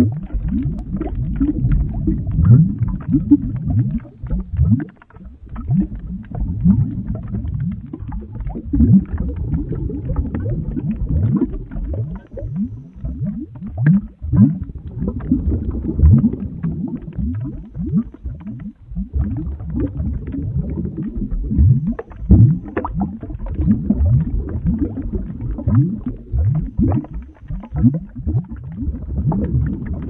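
Thick, heavy liquid boiling: a 'boiling lava' sound effect of deep gloopy bubbles, many a second, each bloop rising in pitch, over a continuous low churning. The sound eases off briefly twice.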